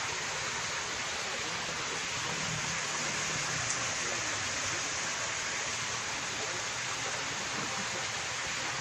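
Steady rushing noise of running or splashing water, even and unbroken throughout.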